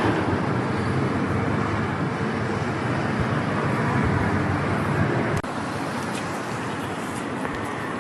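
Steady city traffic noise, a continuous rumble and hiss that drops suddenly to a lower level about five seconds in.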